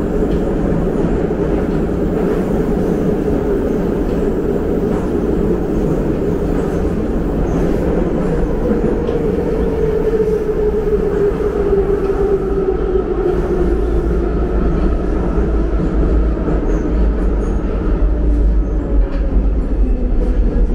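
Metro train running through a tunnel, heard from inside the passenger car: a loud, steady rumble of wheels and running gear. A motor whine slides down in pitch partway through.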